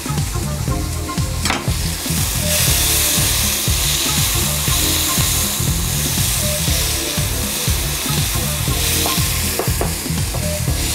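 Sliced onions and mushrooms sizzling in a hot non-stick wok, stirred with a spatula. The frying hiss is steady and grows louder a couple of seconds in.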